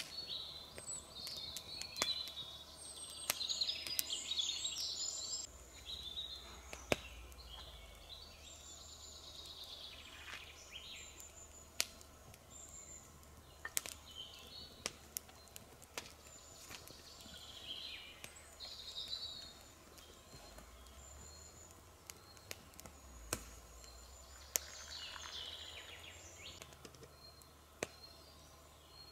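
Forest birds chirping and singing, with irregular sharp crackles from a burning Swedish torch log fire.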